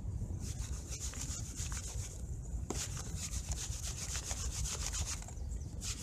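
Muddy, gravelly soil rubbed back and forth by hand across a sieve screen over a plastic basin. It makes quick, rhythmic rasping scrapes in runs, with short breaks about two and five seconds in. The soil is sticky and muddy, so it sifts poorly and little passes through the mesh.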